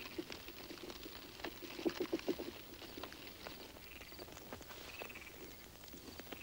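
Faint ambience of soft footsteps and cloth rustling, with crickets chirping faintly in short pulsed bursts.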